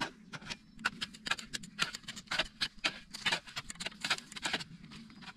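Hand tools digging into dry, stony soil: a long-handled digging tool and small shovels chopping and scraping in a quick, irregular run of strikes, several a second.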